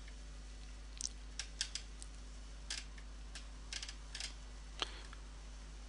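Faint, irregular clicking of computer input while scrolling through code, about a dozen light clicks spread over the few seconds, over a steady low electrical hum.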